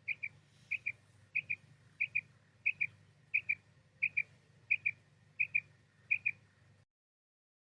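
Female quail calling: short paired high notes repeated evenly, about one pair every two-thirds of a second, ten pairs in all, over a faint low hum. The calls stop shortly before the end.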